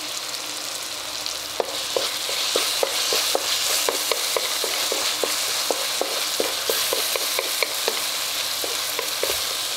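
Tomato-onion masala sizzling in hot oil in a metal kadai while a wooden spatula stirs it. From about a second and a half in, the spatula knocks and scrapes against the pan several times a second over the steady sizzle.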